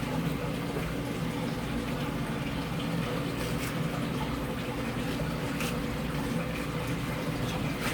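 Steady low hum with a watery hiss, of the kind that running water or a water pump makes, with a few faint clicks in the middle.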